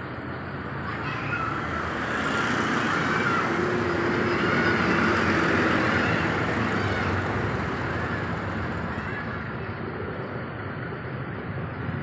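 A bus passing by, its engine and road noise swelling to a peak about halfway through and then slowly fading, with a few faint short high-pitched sounds over it.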